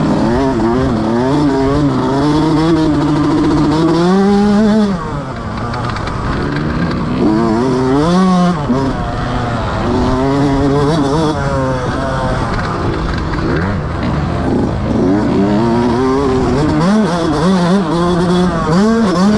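Motocross bike engine revving hard, its pitch climbing and then dropping again and again as it accelerates and backs off. The loudest rise, about four seconds in, is cut off sharply.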